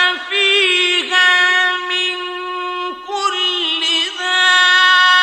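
A male Quran reciter chanting in the melodic mujawwad style, drawing out long held notes with wavering ornamental turns. The voice breaks off briefly about one second in and again about three seconds in.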